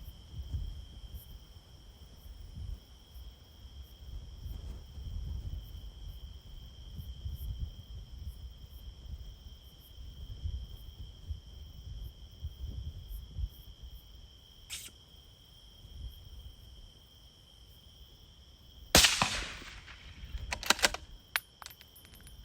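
Crickets trilling steadily. About nineteen seconds in, a single suppressed rifle shot rings out, and a second or two later comes a quick run of sharp clicks.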